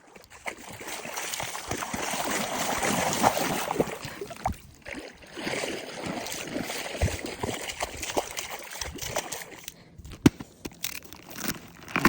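A package being handled and unwrapped: rustling with many small clicks and taps, densest over the first few seconds, then sparser.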